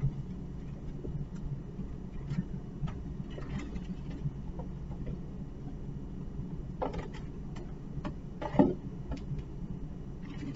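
Steady low room hum with scattered light clicks and knocks from supplies being handled at a bedside cabinet drawer; the loudest knock comes about eight and a half seconds in.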